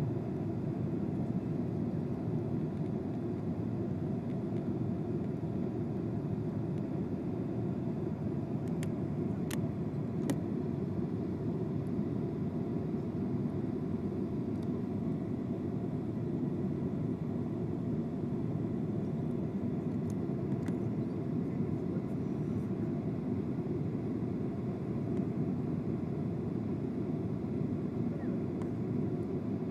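Steady jet-airliner cabin noise: the even rumble of engines and airflow heard from inside the passenger cabin, with a few faint clicks about a third of the way in.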